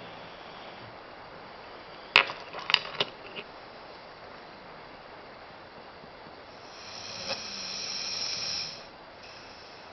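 Siberian husky snoring: a quick run of sharp clicking sounds about two seconds in, then one long raspy snore breath that swells and cuts off near the end.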